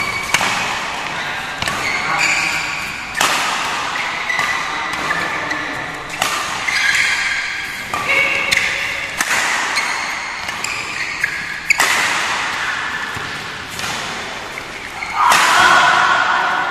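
Badminton rally in a large hall: sharp cracks of rackets striking the shuttlecock every second or two, with short squeaks of shoes on the court mat and voices. Louder voices rise near the end.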